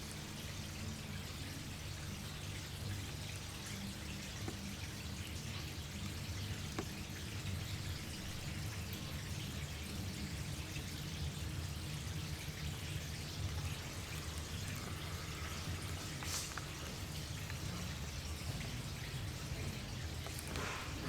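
Indoor water wall running, with water falling and splashing steadily into its basin. A low hum runs underneath.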